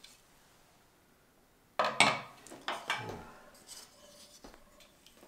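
Glass pot lid set down on a hard glass surface with a clatter about two seconds in, followed by a few lighter knocks and clinks.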